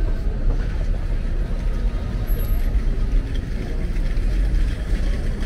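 Busy city street ambience: steady road traffic noise, heaviest in the low rumble, with no sudden events.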